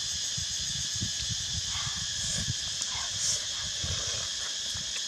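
Steady, high-pitched chorus of insects such as crickets or cicadas, with uneven low rumble from wind on the microphone.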